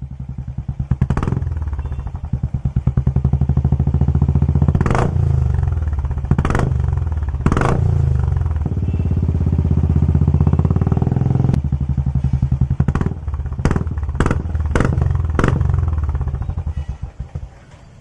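Royal Enfield Classic 350 BS6's single-cylinder engine running through an aftermarket double-barrel MS Racer exhaust, revved up and down with several sharp cracks along the way. The engine note drops away near the end.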